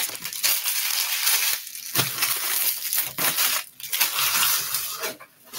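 Plastic trading-card pack wrappers and packaging crinkling and crumpling as they are handled, in uneven rustling stretches broken by short pauses.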